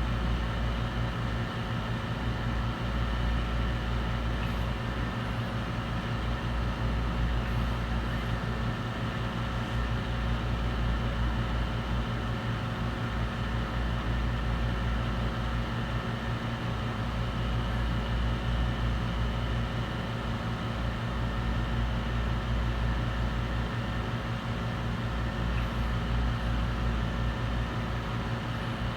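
An electric blower runs steadily throughout: a low drone with several fixed steady tones above it and an even hiss.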